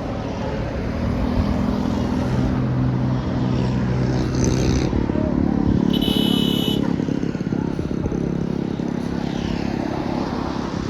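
Large diesel bus engine running as it passes, a steady low drone that grows louder over the first few seconds and then holds. Two short high-pitched tones sound about four and six seconds in.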